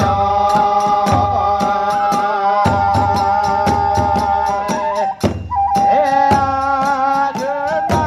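Kagura festival music: a bamboo transverse flute (fue) playing a held, wavering melody over continuous strokes of large drum and hand cymbals (tesarigane). The flute line breaks off briefly about five seconds in, then resumes.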